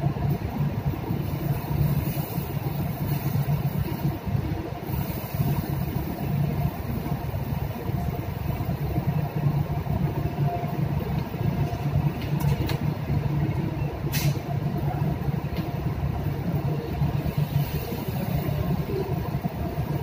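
Steady low rumble of a ship's machinery heard in the galley at sea. A single sharp click cuts through it about two-thirds of the way in.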